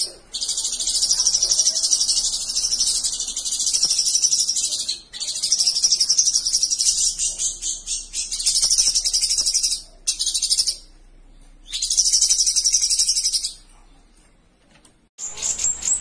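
Caged cucak songbird singing long, fast, chattering high-pitched phrases, broken by short pauses about five and eleven seconds in. The song stops about two and a half seconds before the end, and a different bird's song starts just before the end.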